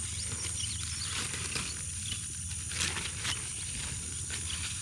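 Outdoor field ambience: a steady high-pitched insect drone, with faint short chirps scattered through it.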